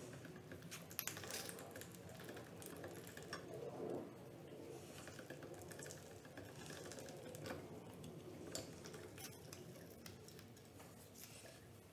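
Hand-cranked LEM vertical sausage stuffer being turned to push sausage meat into a casing: a quiet run of irregular small clicks and ticks, with a few louder knocks among them.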